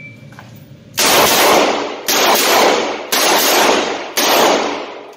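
Four shots from a Ruger GP100 .357 Magnum revolver, fired at an even pace about a second apart, each with a long echo.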